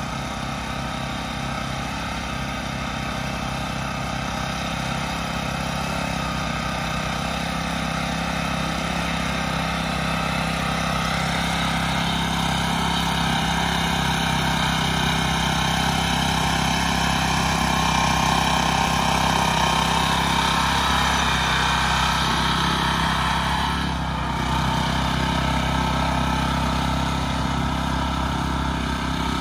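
A small engine running steadily, growing somewhat louder toward the middle, with a brief dip a few seconds before the end.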